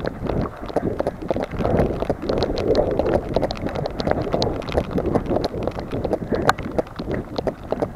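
Running footsteps slapping and splashing on wet pavement in the rain, with a steady rhythm of footfalls. Raindrops tick on the camera and wind buffets the microphone.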